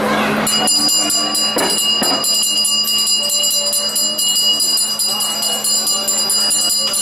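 Temple hand bell rung rapidly and without pause, starting about half a second in, its bright ringing tones renewed by closely spaced strokes; a temple bell like this is rung while incense smoke is offered to the deity.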